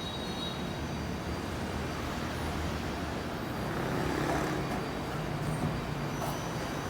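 Mori Seiki SL-20 CNC lathe running, a steady mechanical hum and whir that swells slightly about four seconds in.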